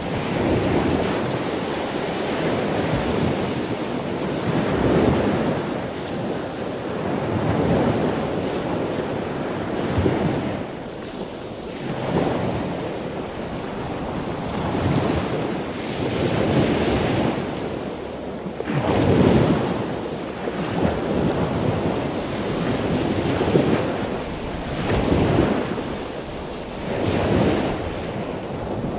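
A loud rushing noise with no clear pitch, swelling and fading every two to three seconds, like breaking surf.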